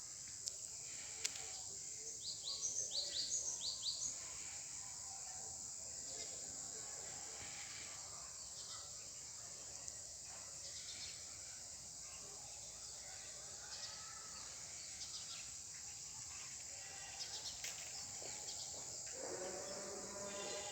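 Outdoor ambience: a steady high insect drone, with a quick run of about seven bird chirps about two seconds in.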